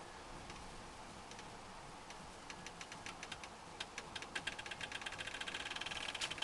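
A run of sharp clicks, a few scattered ones at first, then quicker and louder over the last few seconds.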